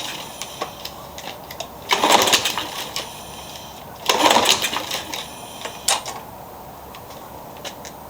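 Lawn mower's Briggs & Stratton engine pull-started twice, about two seconds apart: each pull of the recoil starter is a short rattling crank that doesn't catch, as the engine won't start without priming.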